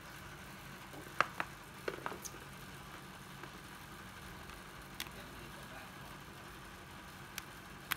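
Sharp plastic clicks and taps from a 12V cordless drill/driver being handled: a cluster of them in the first couple of seconds, then single clicks later, over a steady faint hum. The drill's motor does not run.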